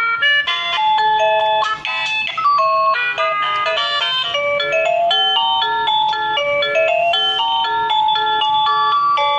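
An electronic tune of clear, bell-like notes: a melody over an evenly repeating accompaniment.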